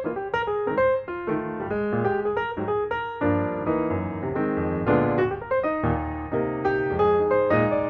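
Background piano music, a steady run of notes with chords.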